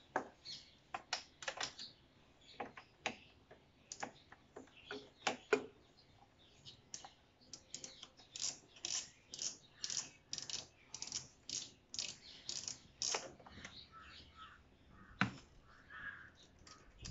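Irregular small clicks and taps of a hand working loose a fastener on a motorcycle's plastic stock radiator cover, coming in a quicker run about halfway through.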